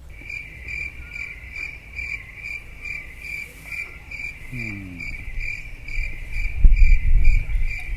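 Cricket chirping in a steady, even run of about two chirps a second, the chirping starting and stopping abruptly. A low rumble rises under it in the last couple of seconds.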